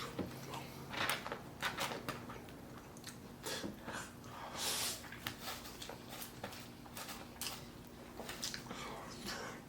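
Close-up eating sounds: chewing with wet mouth clicks scattered throughout, and a short louder noisy stretch about four and a half seconds in.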